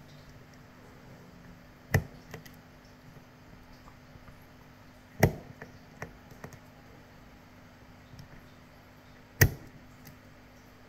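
Three sharp clicks a few seconds apart, each followed by a couple of fainter ticks. They come from a pick and tension tool working a Laperche Rols slider lock.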